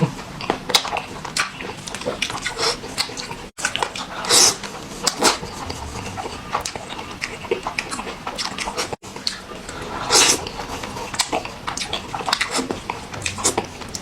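Close-miked eating sounds, sped up: noodles slurped in several long pulls among quick wet smacks and chewing clicks. The sound cuts off abruptly twice, between clips.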